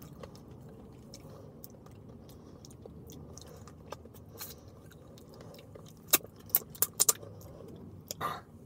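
A man chewing raspberries with his mouth close to the microphone, soft mouth sounds over a low steady background. A quick run of sharp clicks comes about six to seven seconds in.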